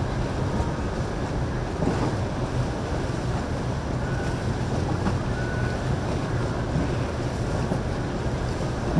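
Motorboat engine running steadily with a low hum, under a wash of water and wind noise on the microphone.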